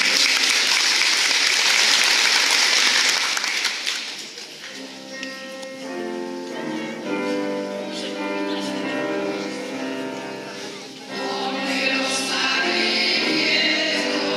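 Audience applause that dies away about four seconds in, then a women's vocal ensemble starts singing a folk song together, growing louder after a short break about eleven seconds in.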